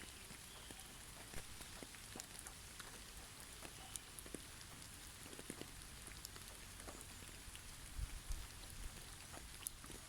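Faint steady hiss of precipitation on snow-covered trees, with scattered light ticks and drops and a few slightly louder soft thuds about eight seconds in.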